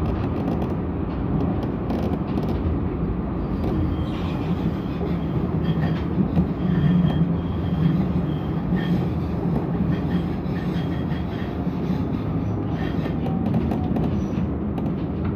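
Tram running along its track, heard from inside the passenger saloon: a steady rumble and hum of wheels on rail and traction motors, with a few faint high squeaks in the middle.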